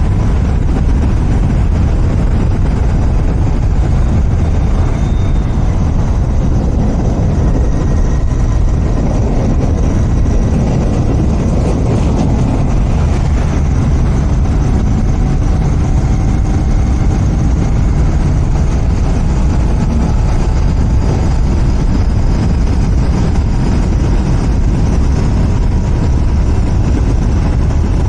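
Royal Enfield Continental GT 650's parallel-twin engine running through its stock exhaust while riding at an even pace, a steady loud rumble.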